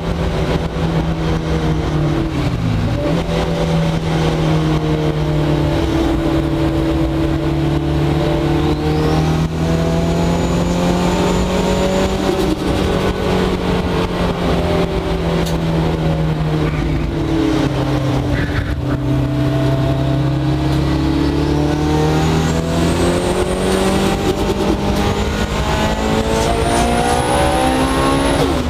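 Mitsubishi Evo 8 race car's turbocharged four-cylinder engine heard inside the cabin at speed on track, its pitch climbing under acceleration and dropping off for corners, with dips about three seconds in and again near the end. A high whine rises along with the revs on several of the pulls.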